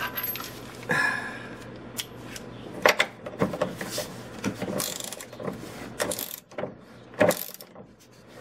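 Hand ratchet clicking in short, irregular bursts as a subframe bolt is run in through its collar by hand, to be torqued afterwards. A few sharper metal knocks stand out, about three seconds in and again near seven seconds.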